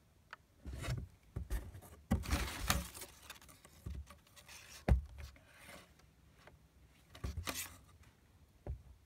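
Crumpled packing paper in a cardboard box rustling and crinkling in irregular bursts as a cat shifts in it. A single sharp knock about five seconds in is the loudest sound.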